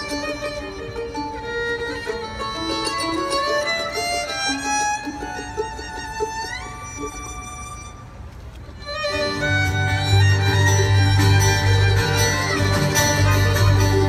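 Live bluegrass fiddle playing a fast melody, sliding up to a high note and thinning out to a held note. About nine seconds in, the full band comes in louder, with a strong upright bass under banjo, mandolin and guitar.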